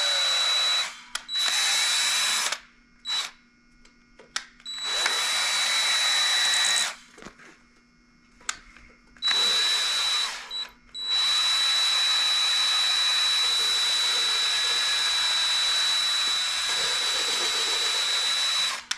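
Electric drill spinning a new intake valve against its seat in a Chevy 327 cylinder head, lapping it in with coarse compound. It runs in several short spurts with a steady high whine, switched between forward and reverse, then runs steadily from about eleven seconds in.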